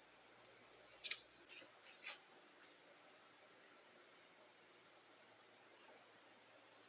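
Faint insect chirping, a high trill pulsing about twice a second, with two short sharp clicks about one and two seconds in.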